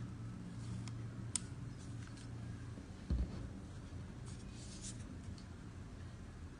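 Hands handling small objects: light scratching and a few small clicks, with a dull thump about three seconds in, over a low steady hum.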